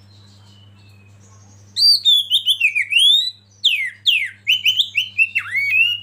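Oriental magpie-robin singing: after a short pause, from about two seconds in, a rapid run of loud whistled notes sliding up and down in pitch.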